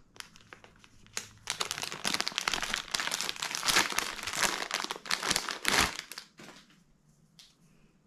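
Clear plastic packaging bag crinkling and rustling as it is opened and a curtain tieback pulled out; the crackling lasts about five seconds, then stops.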